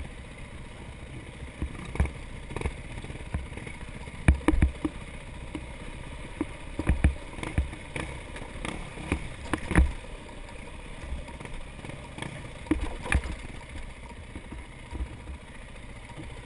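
Dirt bike engine running muffled under a steady rush of wind noise, picked up by a helmet-mounted camera, with repeated sharp thumps and knocks as the bike rides over a rough, rutted dirt trail; the thumps are the loudest sounds, several coming in quick pairs.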